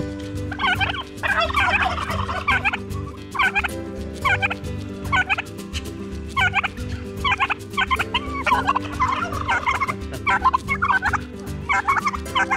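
White domestic turkey toms strutting and gobbling repeatedly, several at once, in short overlapping calls.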